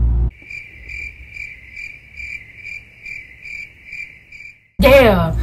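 Cricket chirping, evenly spaced high chirps about three a second, starting and stopping abruptly: a stock "crickets" sound effect edited in over an awkward silence.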